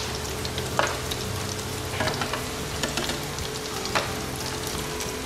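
Battered pieces sizzling as they shallow-fry in hot oil in a non-stick pan, with a few light clicks of metal tongs against the pan as the pieces are turned.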